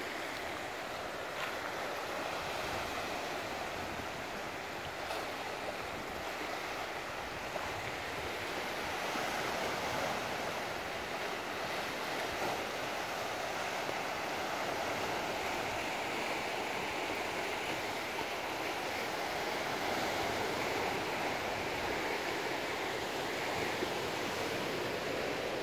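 Sea surf washing and breaking on a rocky shore: a steady rush of waves that swells a little now and then.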